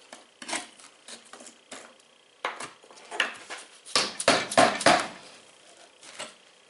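Scattered knocks and clatter as chunks of brittle, lightweight fireproofing fill are broken and pulled out of a safe door, with a quick run of louder knocks about four seconds in.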